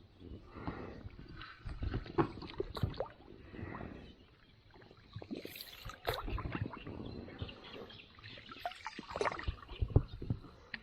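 Irregular splashing and gurgling of water, with scattered knocks and clicks in clusters that pause briefly about four seconds in.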